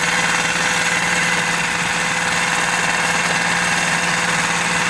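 Lehr 5 hp propane-fuelled four-stroke single-cylinder outboard running steadily on a test stand with its cowling off, smooth and quiet for a four-stroke.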